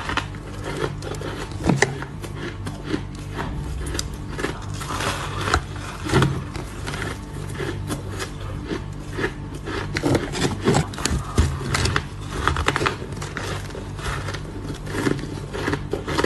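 Soft, snowy ice being bitten and chewed close to the microphone: a dense, continuous crackling crunch with louder bites every few seconds, over a steady low hum.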